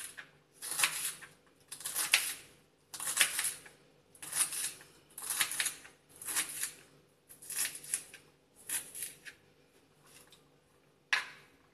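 Kitchen knife chopping crisp green vegetable pieces on a wooden cutting board, a crunchy cut and tap against the board about once a second.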